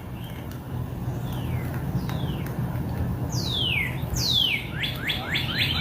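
Birdsong: a few clear whistled notes that each fall in pitch, then from about five seconds in a quick run of short downslurred chirps, about five a second, over a steady low background hum.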